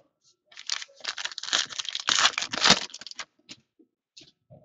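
Plastic foil trading-card pack wrapper crinkling and tearing as it is opened by hand, a rustle lasting about two and a half seconds, followed by a few light taps.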